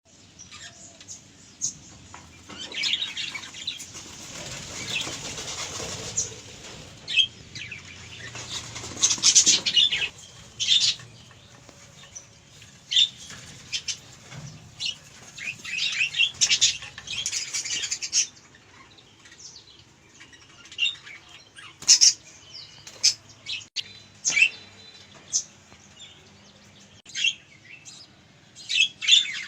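Budgerigars chirping and chattering: many short, high calls in irregular bursts, some in quick clusters.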